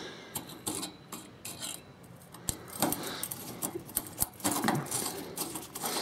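Scattered light metallic clicks and taps: hand tools and small metal fridge parts being handled.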